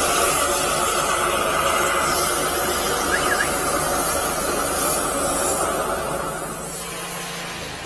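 High-pressure sewer jetter spraying water through its nozzle into a PVC pipe: a steady, loud hiss that fades away in the last second or so.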